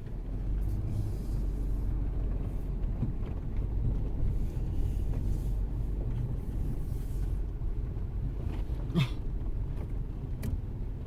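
Vehicle driving slowly, a steady low rumble of engine and road noise heard from inside the cab, with a sharp knock about nine seconds in.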